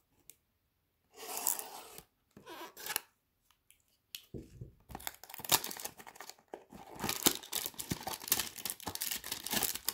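Trading-card hanger box packaging being torn open and handled, with tearing and crinkling rustles. Two short rustles come in the first few seconds, then from about four seconds in the tearing and crinkling runs on almost without a break, with sharp clicks.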